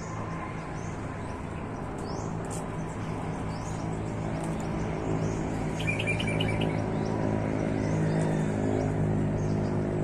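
Birds chirping: many short, high chirps throughout, with a quick run of chirps about six seconds in. Under them runs a low steady hum that grows louder toward the end.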